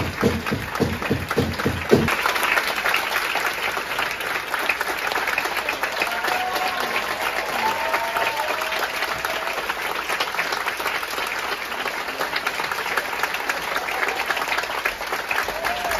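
Theatre audience applauding steadily, a dense crackle of many hands clapping. A few low thumps sound in the first two seconds, and a few faint voices cheer about six to nine seconds in.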